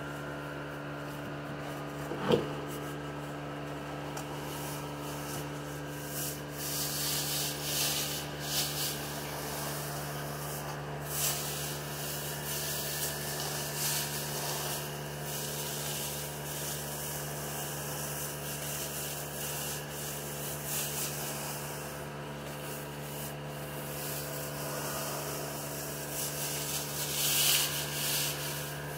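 Irregular rubbing strokes of sanding, heaviest in two spells, over the steady hum of a fan. A single sharp knock about two seconds in.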